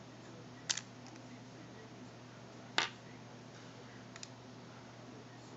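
A few small sharp clicks, the loudest about three seconds in, as the digitizer's ribbon connector is unclipped from the phone's motherboard, over a faint steady hum.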